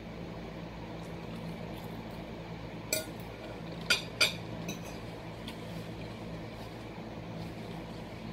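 Forks clinking against plates a few times about three to four and a half seconds in, sharp short clinks over a steady low hum.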